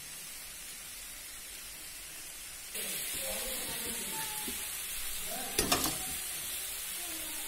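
Grated carrot halwa sizzling as it fries in ghee in a pan and is stirred. The sizzle gets louder about three seconds in, and a spatula knocks against the pan a few times near the end.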